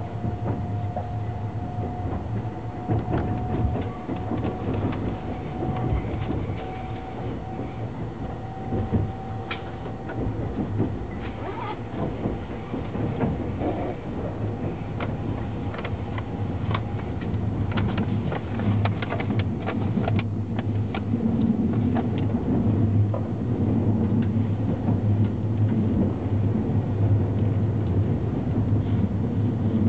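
Sunrise Seto/Izumo 285-series sleeper train heard from on board as it pulls out of a station. Wheels clack over rail joints and points above a steady low hum. A faint whine rises slowly in pitch over the first dozen seconds as the train gathers speed, and the running noise grows louder in the second half.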